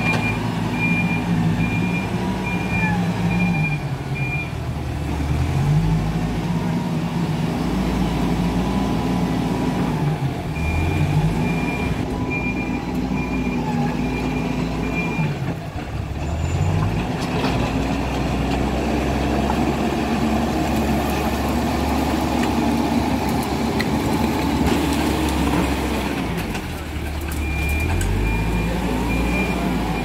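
Hidromek 102B backhoe loader's diesel engine revving up and down repeatedly as it works. Its reversing alarm beeps about twice a second in three stretches: at the start, in the middle and near the end.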